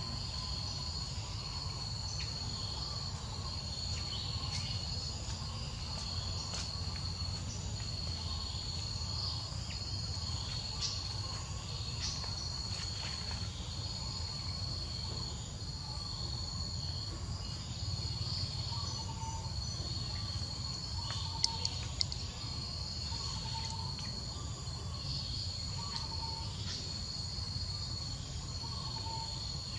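Insects chirping in a steady, high-pitched pulsing trill over a low background rumble. In the second half a fainter, lower short note repeats about every second and a half, and two sharp clicks come about two-thirds of the way through.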